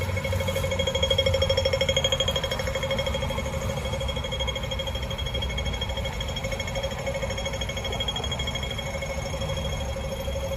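Pedestrian crossing signal sounding its rapid, evenly repeating beep for the green man: the signal that it is time to cross.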